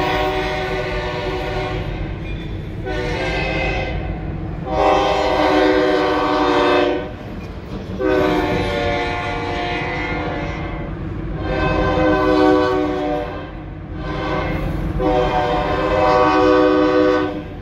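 EMD SD40 diesel locomotive's air horn sounding a run of blasts over a steady low rumble. The blasts are mostly long, with one short blast about three seconds in, in the long-long-short-long pattern of a grade-crossing signal.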